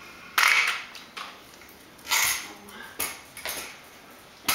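Metal kick scooter knocking against a concrete floor: a series of sharp metallic clanks, each ringing briefly, roughly a second apart, as the scooter is set down and moved.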